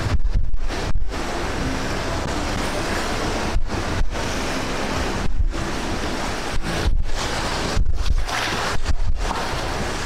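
River rapids rushing around a raft in white water, with wind buffeting the microphone in low gusts. The sound drops out for an instant several times.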